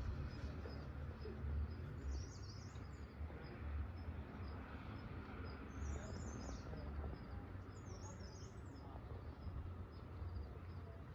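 Birds chirping in short quick flurries three times, with a faint high note repeating about twice a second, over a steady low rumble.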